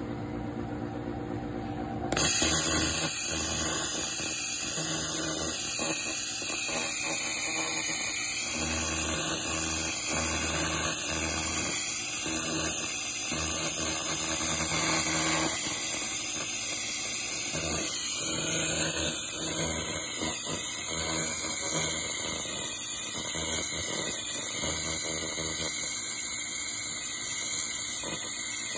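Laser cleaner ablating the surface of a cast iron skillet: a steady, loud, high-pitched hiss that starts suddenly about two seconds in, over a faint low machine hum.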